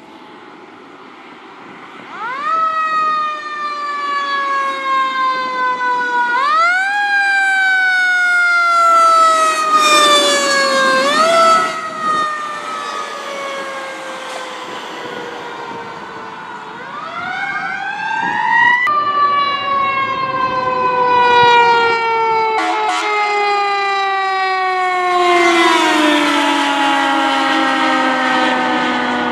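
Pierce fire engines on an emergency response with their sirens sounding. The siren winds up sharply and falls away slowly four times, then holds one long falling wail that drops lower near the end as the engine pulls away.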